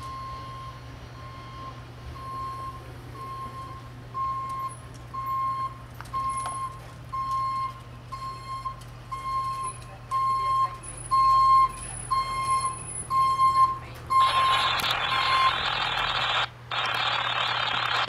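Utility truck's backup alarm sounding a steady run of evenly spaced single-pitch beeps over a low engine hum. Near the end the beeps stop and a loud rushing hiss takes over, briefly cutting out once.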